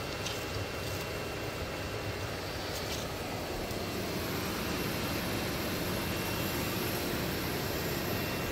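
Steady hum of a running household appliance, with a faint high-pitched whine; the lower part of the noise grows a little fuller about halfway through.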